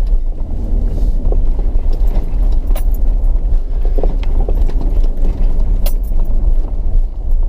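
Inside an off-road 4x4's cab: steady low engine and road rumble as it drives slowly over a rough sandy, stony track, with a few sharp clicks and rattles from the jolting vehicle.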